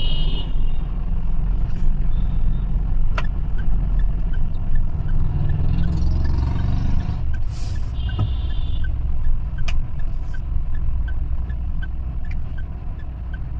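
Steady road and engine rumble inside a moving car's cabin. A short high-pitched beep sounds near the start and again about eight seconds in.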